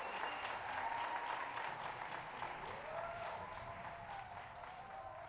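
Audience applauding a choir's performance, dense clapping that slowly fades.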